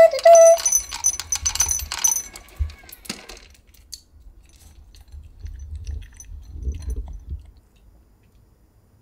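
Dry kibble from an automatic pet feeder rattling and clinking into a ceramic bowl, ringing brightly, for about three seconds after a short tone from the feeder. Later there are faint sounds of a small dog eating from the bowl.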